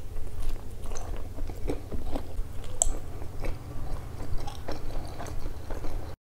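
Close-miked mouth chewing a bite of hot dog (soft bun, sausage and chili sauce), with irregular wet smacks and clicks, cutting off suddenly near the end.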